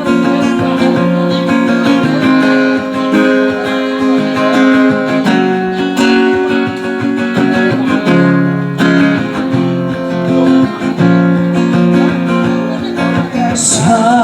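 Acoustic guitar strumming chords in an instrumental break of a slow ballad, over held notes that change every second or two.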